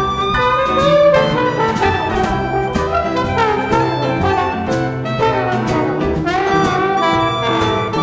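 Live small jazz band playing a swing tune: trombone and clarinet play melody lines over upright bass and drums, with cymbal strokes keeping the beat.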